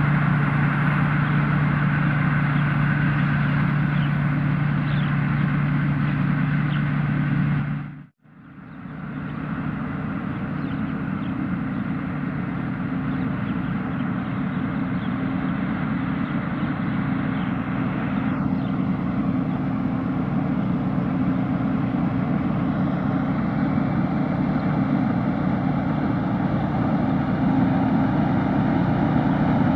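Thai Seng Yont 'Chao Phayu' rice combine harvester running steadily with an even engine hum. About eight seconds in, the sound cuts out abruptly for a moment and then returns at a slightly lower level.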